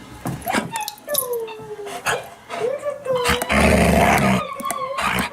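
A dog whining, a run of high gliding whimpers. A loud, rough burst of noise lasts about a second, starting about three and a half seconds in.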